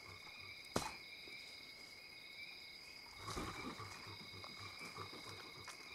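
Crickets trilling steadily at night, a high continuous chirring with a pulsing chirp above it. A single sharp click comes about a second in, and a short rustle about three seconds in.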